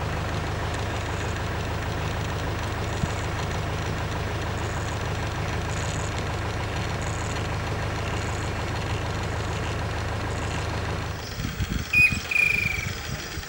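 A vehicle engine idling with a steady low hum. About eleven seconds in it stops abruptly, leaving quieter outdoor sound with a sharp click and a short, high, slightly falling call near the end.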